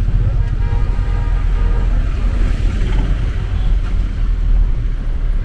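A car driving through city traffic: a steady low rumble of engine and road noise.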